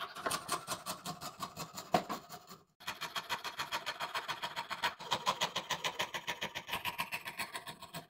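Coping saw cutting through Baltic birch plywood, a rapid, even run of short rasping strokes, broken once by a brief gap near three seconds in.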